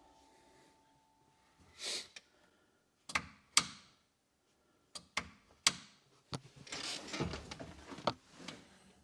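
Irregular sharp knocks and clicks, about a dozen, with a brief swish about two seconds in and a short stretch of clattering in the second half.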